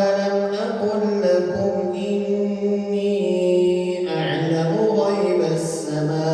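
A man reciting the Qur'an in a melodic, chanted style through a mosque's sound system, holding long notes that bend slowly, with a fresh phrase starting about two-thirds of the way through.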